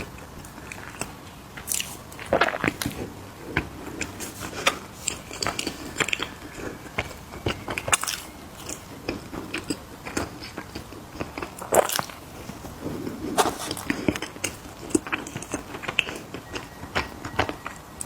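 Close-up crunching of mini cookies being bitten and chewed, a steady run of irregular sharp crackles with a few louder crunches.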